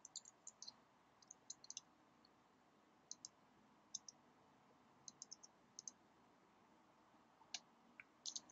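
Faint clicks of typing on a computer keyboard, a few keystrokes at a time with short pauses between, and a firmer cluster of keystrokes near the end.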